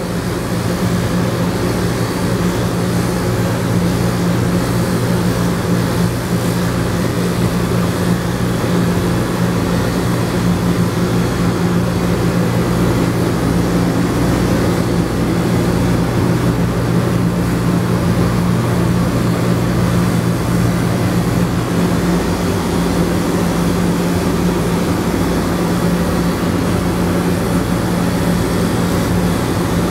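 Electric dog grooming clipper with a guard comb running steadily, a continuous motor hum that shifts slightly about two-thirds of the way in, as it is worked over a dog's face and chin. A low, even bass pulse runs underneath.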